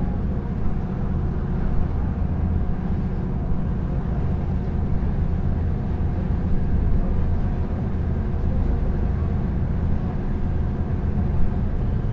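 River ferry's engine running with a steady low drone.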